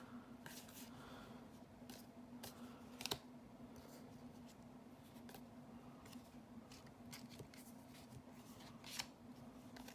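Faint handling of Magic: The Gathering trading cards: scattered light clicks and slides as cards are flipped through and sorted, over a steady low hum.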